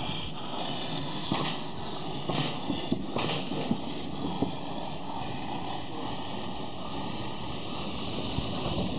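Small 2 ft gauge steam locomotive hissing steam, with a few short, sharp louder bursts in the first few seconds.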